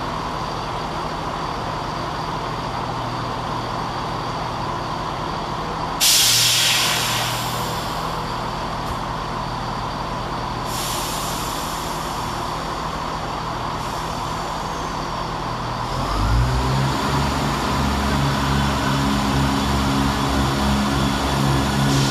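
ScotRail Class 170 Turbostar diesel multiple unit idling at the platform. About six seconds in, a sudden loud hiss of air from its brakes fades away over a second or so. About sixteen seconds in, its underfloor diesel engines power up and it pulls away, the engine note growing louder.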